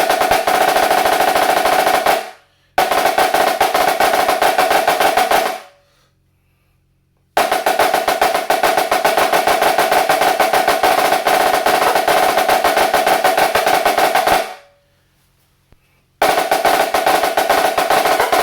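Premier HTS 484 high-tension marching snare drum played in fast, dense rolls, broken by short pauses into several runs, the longest lasting about seven seconds. A clear ringing pitch sounds under the strokes.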